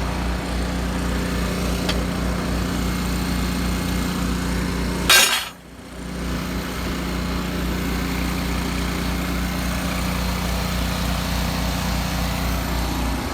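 Small 10-gallon Harbor Freight air compressor running loud and steady alongside a Miller Trailblazer 325 welder-generator engine. About five seconds in there is a sharp hissing burst, then the sound dips briefly and comes back up.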